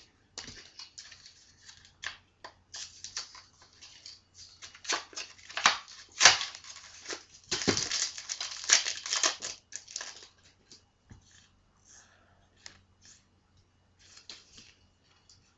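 Plastic booster pack wrapper of a Yu-Gi-Oh! card pack being torn open and crinkled, with cards rustling as they are handled; the crinkling is loudest in the middle and thins to a few faint rustles near the end.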